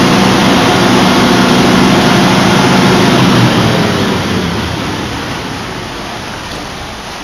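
The electric motor drive of a homemade spin screed, running steadily as it spins a 4-inch stainless tube over wet concrete to level it. It is loud for about the first three and a half seconds, then fades gradually.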